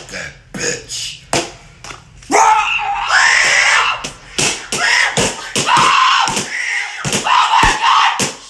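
A person screaming loudly for several seconds, broken by many sharp impacts.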